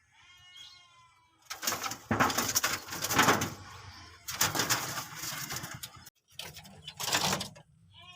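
Common moorhen calling: a short pitched call in the first second, then three loud, harsh, noisy stretches that stop abruptly.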